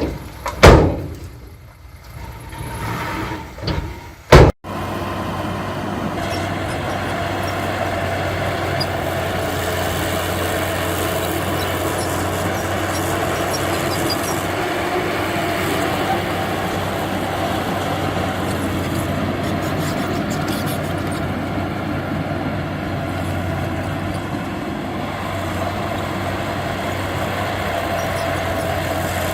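Heavy diesel earthmoving machine running steadily with a low hum, after two loud knocks in the first few seconds.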